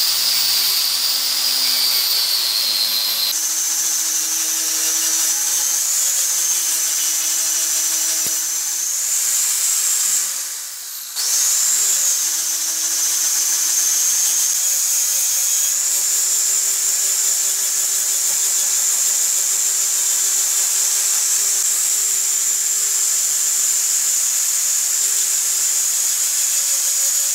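Angle grinder with a knotted wire cup brush running against the bark edge of an ash slab, a loud steady high whine with the scrape of wire on wood. About ten seconds in it dips and slows, then spins back up and runs steadily on.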